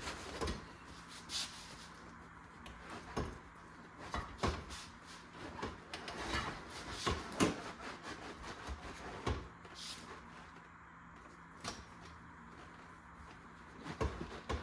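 Scattered clicks, knocks and light rattles of a truck bench seat assembly's parts being handled and worked apart, with a faint steady low hum underneath.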